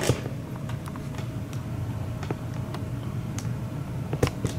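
Low steady hum with a faint steady tone above it, under scattered small clicks and taps from the camera being handled, two of them close together near the end.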